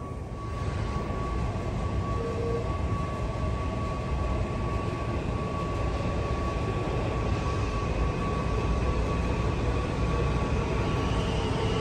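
Washington Metro Breda/Alstom 3000-series train approaching through the tunnel into the station, its rumble growing steadily louder. A steady high tone runs throughout, and a higher whine joins in the second half as the train nears.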